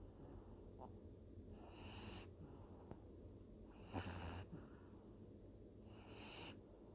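A sleeping pet snoring faintly: three breathy snores about two seconds apart, each lasting about half a second.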